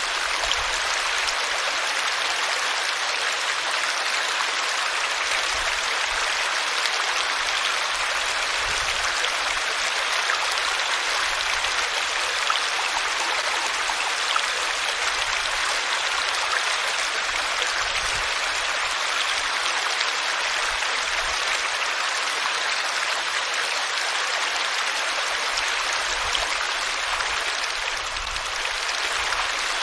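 Water of a small stream flowing steadily, an even rushing babble.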